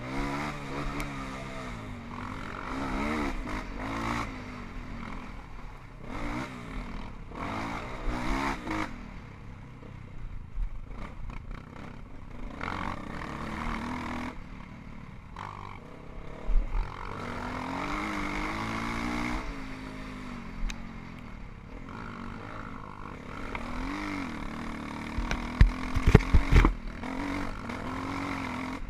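Single-cylinder four-stroke trail motorcycle engine revving up and down again and again as it is ridden off-road, with the pitch climbing and dropping through the gears. About three-quarters of the way through, a quick cluster of loud knocks and thumps.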